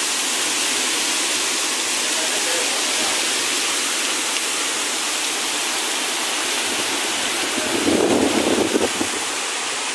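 Heavy rain pouring steadily in a windstorm. Near the end a louder, rough burst of noise lasts about a second.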